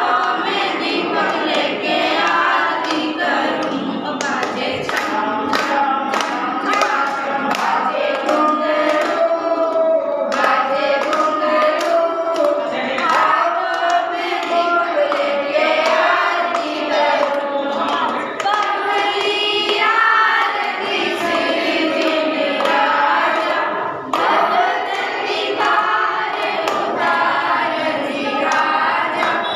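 A group of girls and women singing a Jain devotional bhajan together, clapping their hands in time.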